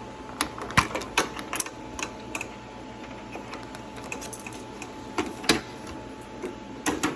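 Irregular sharp clicks and taps of a tool prying at the plastic door panel of a microwave oven, the clicks bunched more densely in the first half.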